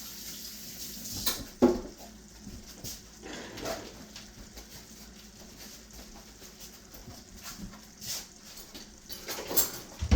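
Water running from a kitchen tap for hand-washing, stopping about a second in. Then scattered knocks and clatter from handling things at the sink and counter, the loudest a sharp knock soon after the water stops.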